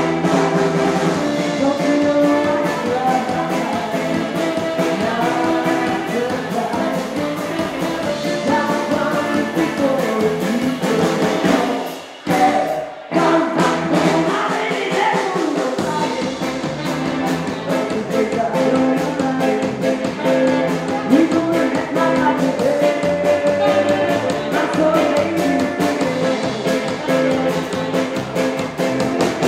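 Live rockabilly band playing loudly: electric guitar, saxophone and drums with a woman singing. The music briefly drops out about twelve seconds in.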